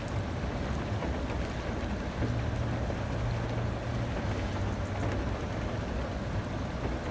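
Steady outdoor noise of wind on the microphone and a low engine hum from traffic waiting at the crossing; the hum grows a little stronger for a few seconds in the middle.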